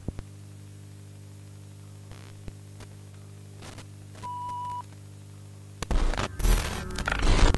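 VHS-style tape playback sound effects: a steady electrical hum with a few clicks at the start, and a short steady test-tone beep about four seconds in, over the colour bars. Then, from about six seconds in, loud bursts of static and glitch noise as the tape picture breaks up.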